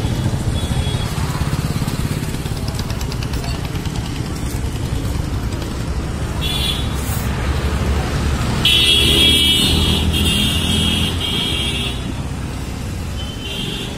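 Street traffic with motorcycles and cars going by, a steady low rumble. Vehicle horns sound: a short honk about six and a half seconds in, a longer, louder honk in about three blasts from roughly nine to twelve seconds in, and another short honk near the end.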